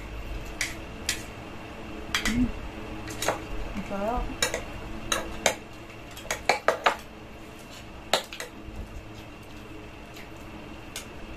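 Metal spoons and forks clinking and scraping against a glass baking dish and a ceramic bowl as food is scooped up. The clicks come at irregular intervals and bunch together in a quick run in the middle.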